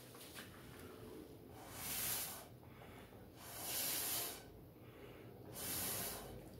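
Three breathy puffs of air blown out by a person, each about a second long and a couple of seconds apart, swelling and fading gently.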